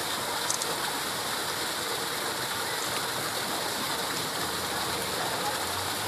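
Small garden waterfall splashing down over rocks, a steady, even rush of falling water.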